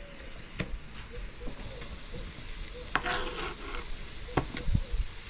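A few sharp taps of a kitchen knife on a plastic cutting board as a carrot is cut, with a short rustle of handling about three seconds in, over a faint steady hiss.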